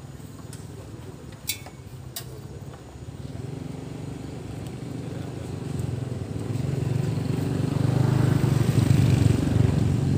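A motor vehicle engine rumbling low and growing steadily louder over the last few seconds. There are two sharp clicks about one and a half and two seconds in.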